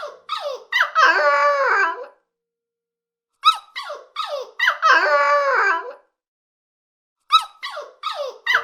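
An animal calling: a few short sharp yelps followed by a long, wavering high-pitched whine, the same sequence three times with silent gaps between.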